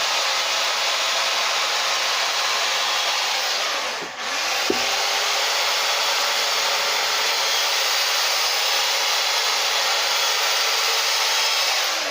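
Carving chainsaw running steadily as it cuts undercuts into the wooden face. It eases off briefly about four seconds in, comes back up, and stops near the end.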